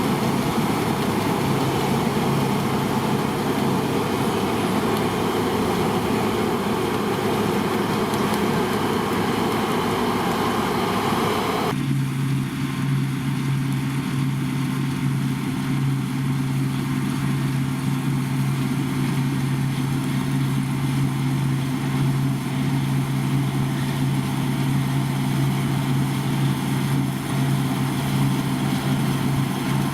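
Combine harvester running steadily at work with a heavy engine drone. About twelve seconds in the sound changes abruptly to a smoother, steadier low hum.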